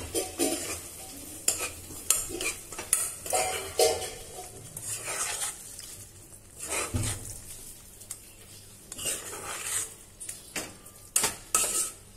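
Spatula stirring a thick masala paste in a wok, scraping and knocking irregularly against the pan as ground peanut and cashew powder is mixed in.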